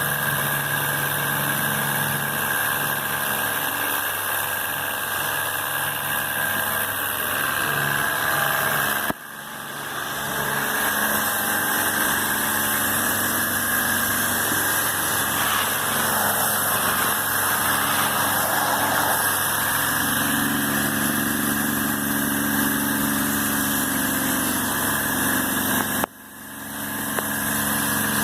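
Electric pressure washer running steadily with a spray hiss; the sound drops out sharply and briefly about a third of the way in and again near the end.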